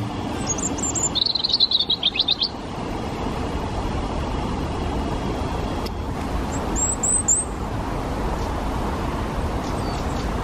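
European robin singing short high phrases: a few high notes, then a louder rapid trill lasting about a second and a half, and another brief high phrase just past the middle, over a steady low background rumble.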